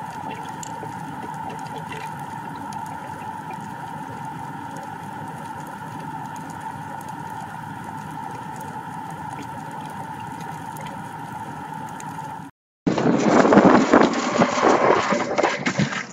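Steady underwater hum and hiss with a constant high whine. About thirteen seconds in it cuts off and is replaced by much louder, rough, crackling noise.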